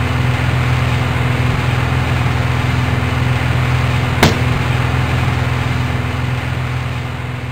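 A steady low mechanical hum with a rushing noise over it, one sharp click a little over four seconds in, fading near the end.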